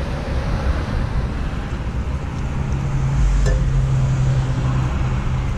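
Steady low rumble of a vehicle, with a low steady hum that comes in about two seconds in and drops out near the end.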